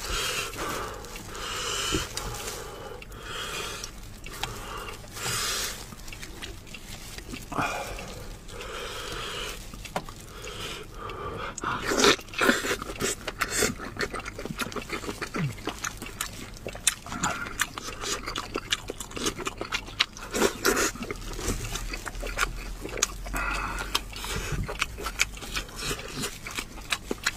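Close-miked eating of spicy mala sheep's head: wet chewing, sucking and lip smacks, many short clicks in quick succession, with meat being pulled and torn from the skull by gloved hands.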